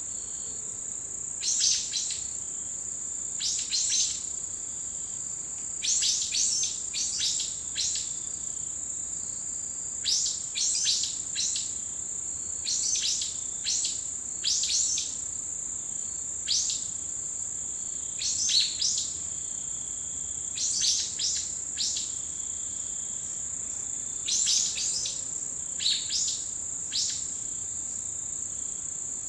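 Autumn insects keep up a steady, high-pitched trill. Over it, birds give repeated short, sharp calls in quick clusters of two to four notes, each note dropping in pitch, every second or two.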